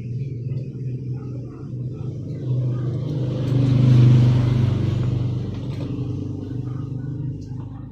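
A motor vehicle passing by: its engine and road noise build up to a peak about halfway through, then fade away over a steady low hum.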